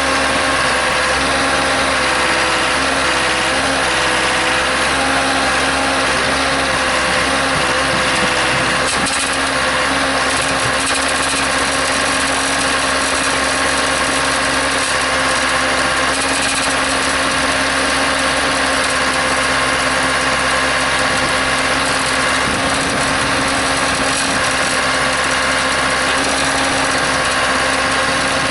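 Case 580C backhoe's engine running steadily at a constant speed.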